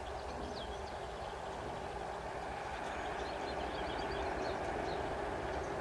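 Steady outdoor background noise with a faint constant hum, and small birds chirping on and off above it.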